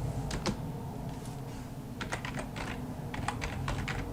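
Typing on a computer keyboard in short irregular runs: two keystrokes near the start, then clusters of keystrokes from about halfway on, over a low steady hum.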